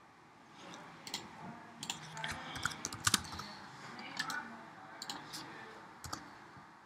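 Computer keyboard keys and clicks: a run of irregular, quiet key presses.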